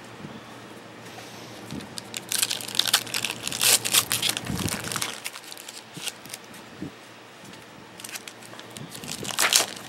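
Foil wrappers of Panini Prestige football card packs crinkling and tearing as packs are ripped open by hand. It comes in bursts of crackly rustling, the busiest about two to five seconds in and again near the end.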